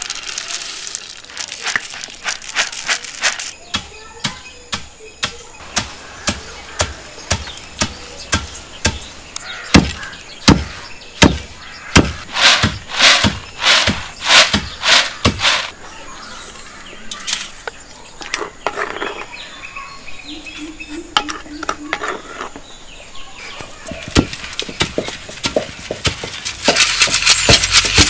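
Dried maize kernels rattling as they are poured from a woven tray into a wooden mortar, then a long wooden pestle pounding the corn in the mortar in a steady run of strikes, about one and a half a second and loudest in the middle, as the kernels are broken down into corn flour.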